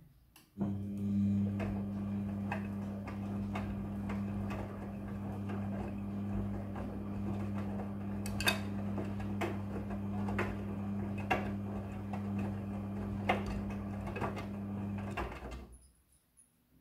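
Midea front-loading washing machine running: a steady low hum with light knocks and clinks about once a second, which stops about a second before the end.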